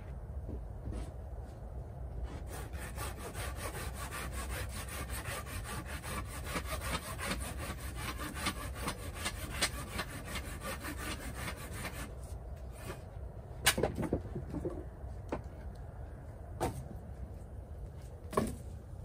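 Hand saw cutting through wood in a quick, steady run of strokes for several seconds. Then a few separate sharp knocks of a blade chopping into wood.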